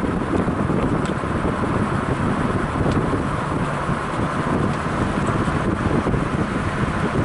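Wind buffeting the camera microphone: a loud, gusty rushing rumble.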